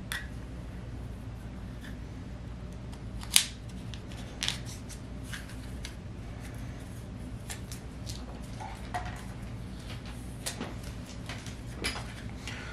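Hands unwrapping and handling a plastic-wrapped stack of trading cards: scattered crinkles and small clicks, one sharper click about three and a half seconds in, over a steady low hum.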